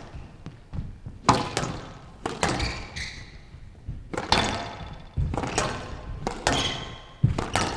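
Squash rally: the ball struck by rackets and smacking off the front wall and glass court walls, a string of sharp hits every half-second to second, some in quick pairs.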